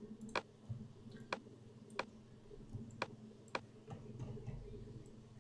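Clicks of a computer mouse and keyboard: about five sharp clicks at uneven intervals, with a few fainter ones between, over a faint steady low hum.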